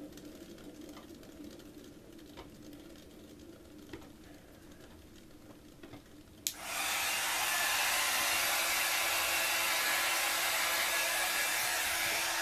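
A heat gun switched on with a click about six and a half seconds in, then blowing a loud, steady hiss of air, used to pop air bubbles in wet acrylic pour paint. Before it, a faint steady fan hum and a few light clicks.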